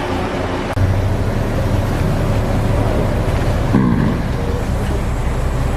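An engine running steadily, its speed and level stepping up about three-quarters of a second in and then holding.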